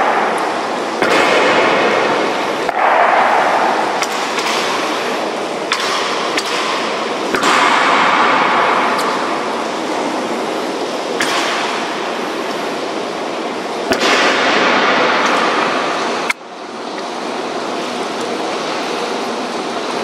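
Steady rain hissing, swelling and easing in gusts of wind, with sharp knocks every few seconds from the honor guard's drill. The rain drops away suddenly near the end and then builds again.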